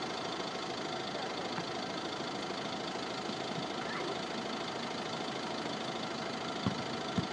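A car engine idling steadily, with two short knocks near the end.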